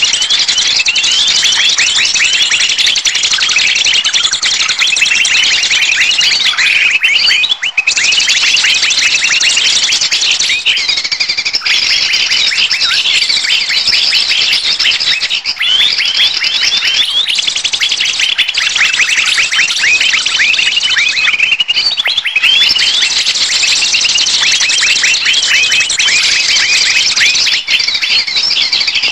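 Bird-lure recording of many small birds chirping and scolding at once: a dense, unbroken chorus of rapid high chirps and short falling calls. It is a 'noisy birds' commotion played to draw wild birds in to be trapped.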